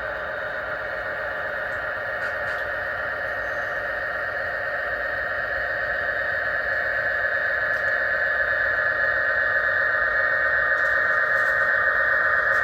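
HO scale model freight train running on the layout track: a steady hum of the locomotive's motor and the wheels on the rails, slowly getting louder as it comes closer.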